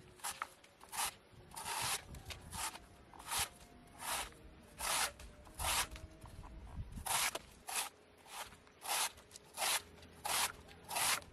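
A big hand-forged knife blade shaving thin slices off the end of a wooden pole to test its sharpness. Over a dozen short slicing strokes, each a brief scraping swish, come roughly one every three-quarters of a second.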